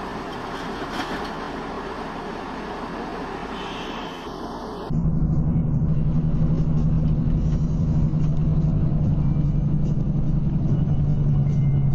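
Vehicle noise recorded by dashcams: a steady wash of traffic and road noise, then an abrupt cut about five seconds in to a louder, steady low drone of engine and road noise heard from inside a moving vehicle.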